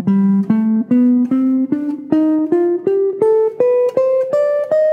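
Clean-toned archtop electric guitar playing a scale one picked note at a time, climbing steadily at about three notes a second. The scale is D Dorian b9, the second mode of the melodic minor, run upward toward a high D.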